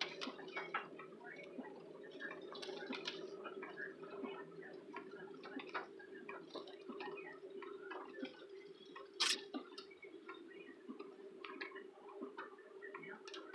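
Irregular taps of raindrops on a car's windshield and roof, heard inside the cabin over a steady low drone of the moving car, with one louder knock about nine seconds in.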